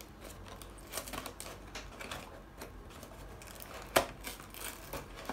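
Cardboard candy box being pried open by hand: a run of small clicks and scrapes as the lid flap is worked loose, with one sharp snap about four seconds in.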